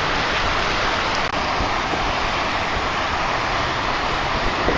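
Rough surf washing and breaking in a steady rush, with wind on the microphone.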